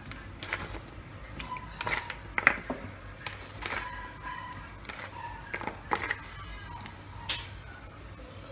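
A pot of carrots and broccoli boiling on the stove, with irregular light clicks and knocks as the vegetables go in and settle. Faint music plays underneath.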